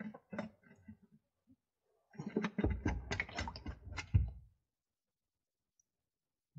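Rapid clicking and light metallic knocks of hand tools working on a tractor's hydraulic filter housing: a few scattered clicks, then a dense run of them from about two seconds in until four and a half.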